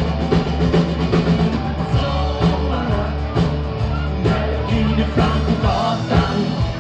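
Rock music with a drum kit and a steady bass line playing, with singing.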